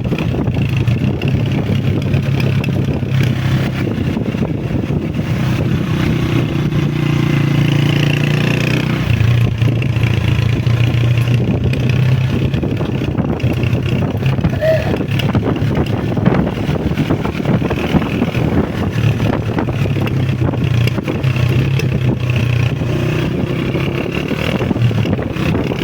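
Honda CG125 motorcycle's single-cylinder four-stroke engine running on the road, its pitch stepping up and down with throttle and gear changes.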